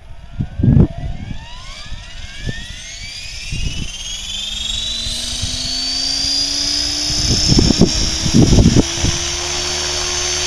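Align T-Rex 500E electric RC helicopter spooling up from a standstill: the brushless motor and drivetrain whine rises steadily in pitch as the main rotor gathers speed toward lift-off. A few short low gusts of wind buffet the microphone, near the start and again toward the end.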